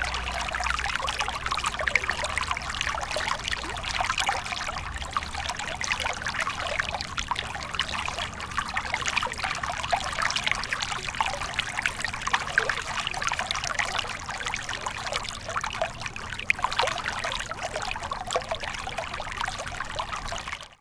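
Small stream of water trickling and babbling over stones, a steady, irregular splashing that ends abruptly.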